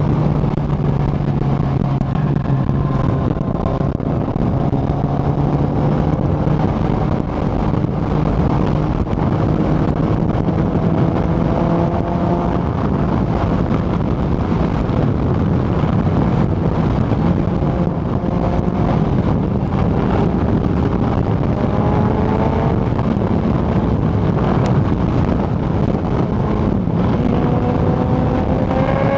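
Kawasaki ZX-14R's inline-four engine running at highway speed under heavy wind rush on the microphone. The engine note rises slowly several times as the bike gains speed, with a steeper rise near the end.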